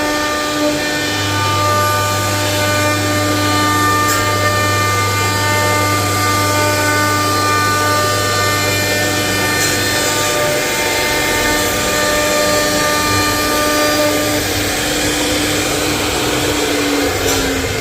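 CNC router spindle running steadily with a whine while cutting a wooden door panel; near the end its pitch starts to drop.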